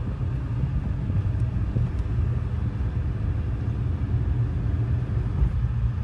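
Steady low rumble of a car driving, heard from inside the cabin: engine and road noise.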